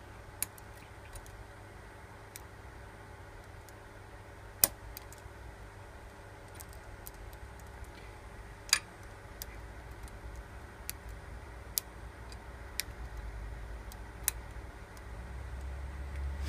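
Lock pick and tension wrench working the pins of an ASEC shutter lock during single-pin picking: scattered small metallic clicks at irregular intervals, two of them sharper and louder, about 4.5 and 9 seconds in. A steady low hum lies beneath.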